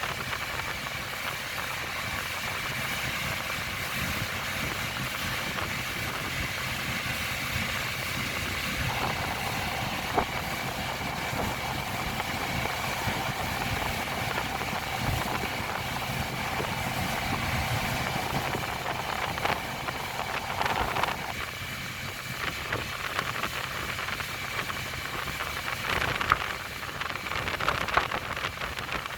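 Tow boat's engine running steadily under way, with a constant hiss of rushing water and wind and a few brief knocks.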